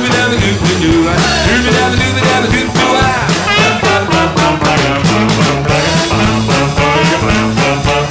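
Background music: a band playing an upbeat song with a steady beat, in an instrumental stretch between sung verses.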